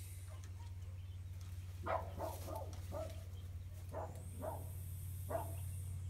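A string of short animal calls, about seven in a couple of seconds, over a steady low hum. A faint hiss comes in near the end that the keeper cannot place; he wonders about a snake, a cat, or a goat rubbing against the barn.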